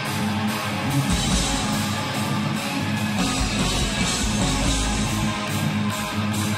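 Live heavy metal band playing, with electric guitar over a drum kit and cymbal strikes keeping a steady beat.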